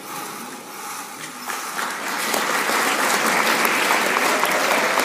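Audience applauding, starting at the close of an orchestral piece and building over the first two seconds into steady, full clapping.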